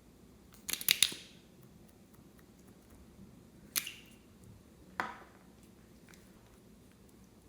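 Slime being handled, giving sharp clicking pops: a quick cluster of them about a second in, then two single pops a little over a second apart.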